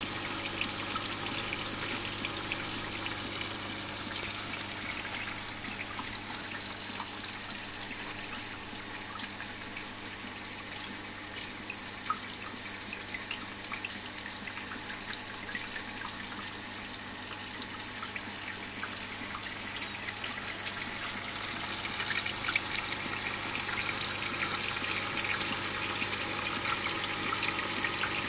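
Water jets of a terrarium rain system spraying and splashing onto leaves and glass: a steady watery hiss with scattered drip ticks, growing louder in the last few seconds, over a steady low hum.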